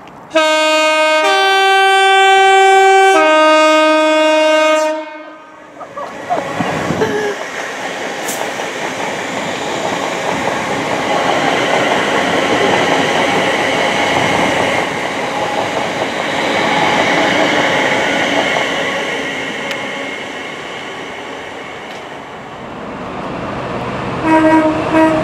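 Electric multiple unit sounding its two-tone horn, low-high-low, for about four seconds as it approaches, then passing at speed with steady wheel and rail noise that swells and fades. Near the end, a short horn note from an approaching GBRf Class 66 diesel locomotive.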